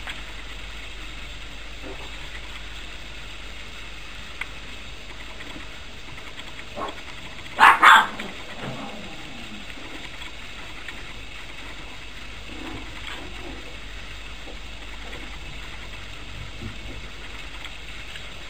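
A puppy gives two sharp yips in quick succession about eight seconds in, over a steady background hiss.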